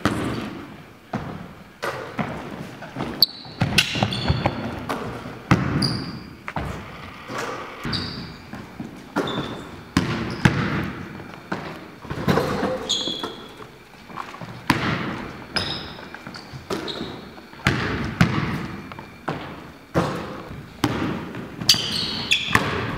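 A basketball thuds on a hardwood gym floor and strikes the backboard and rim during a shooting drill, with short sneaker squeaks between the thuds. Each impact echoes around the large, hard-walled gym.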